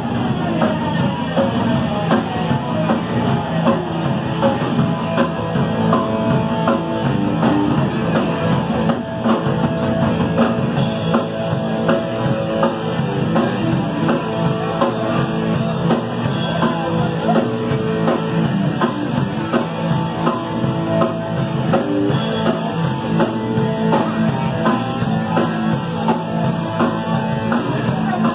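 Punk rock band playing live at full volume: electric guitars, bass and a drum kit pounding out a fast beat, heard from within the crowd in a club.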